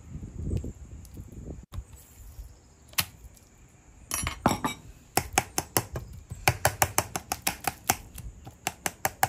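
Metal fork stabbing repeatedly into a raw sirloin steak, its tines tapping against the plate in a rapid run of sharp clicks, several a second, from about five seconds in.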